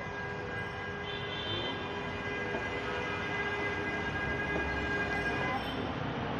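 Busy city street traffic noise, with a steady whine of several held pitches that stops about five and a half seconds in.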